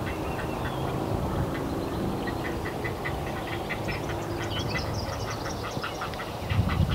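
Great blue heron nestlings calling from the nest: a fast run of short calls at about six a second, with higher notes joining about four seconds in, over a steady low rumble.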